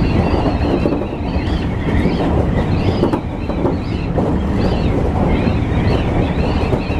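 Tobu Isesaki Line electric train running at speed, heard from inside: a steady rumble of wheels on rail, with a wavering high whine rising and falling over it.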